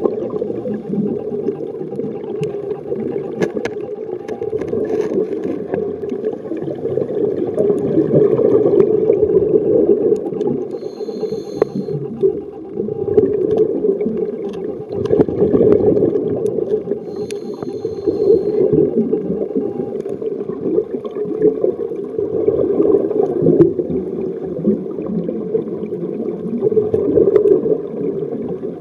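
Underwater ambience picked up by the camera on a shallow reef: a steady, swelling rumble of moving water with scattered faint clicks. Two brief high tones sound about six seconds apart, near the middle.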